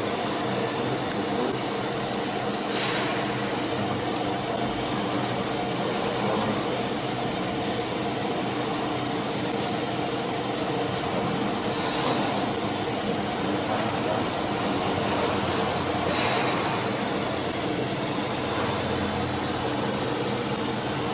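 CNC router machine running steadily during its automatic tool-length measurement at the tool setter: a constant mechanical hum with hiss, with a few faint brief changes as the axes move.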